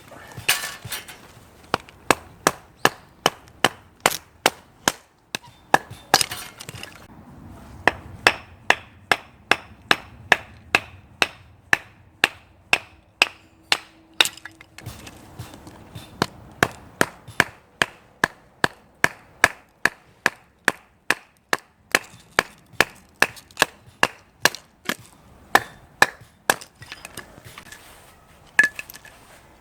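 Axe chopping firewood: sharp, evenly spaced strikes into wood about two a second, with a splintering crack about half a second in and again around six seconds. The strikes pause briefly near the end.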